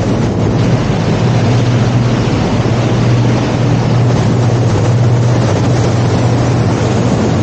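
Ship's engine running with a steady low drone, under a constant rushing noise.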